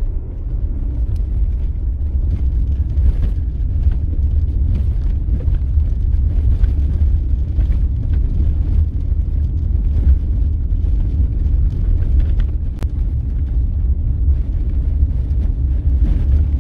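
Vehicle driving on a gravel dirt road, heard from inside the cab: a steady, loud low road rumble with scattered light ticks of gravel.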